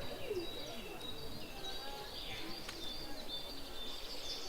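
Several birds singing and chirping at once: many short high whistles and chirps overlapping, over a low background rumble.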